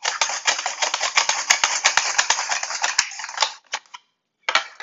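Russet potato being pushed back and forth over a mandoline's fry blade with a hand guard, a fast rattling run of clicks as the strips are cut. It stops briefly about four seconds in, then starts again near the end.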